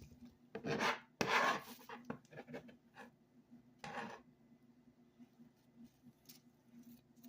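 Chopped garlic being scraped off a cutting board into a plastic marinade bag: a few short scraping and rustling sounds, the longest about a second in and another around four seconds in, with light clicks between.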